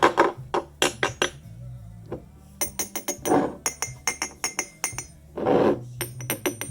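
Metal perfume-bottle cap clicking and clinking against the glass flacon as it is worked off and on, a string of sharp little metallic clicks with a bright ring. Two short rushing noises come between them.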